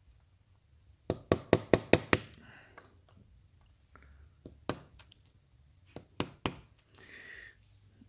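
A small screwdriver tapping the metal locking tabs back over on the can of a small door-lock actuator motor held in a vise, securing its end cap after a rebuild. There is a quick run of about six sharp metallic taps about a second in, then a few single taps later on.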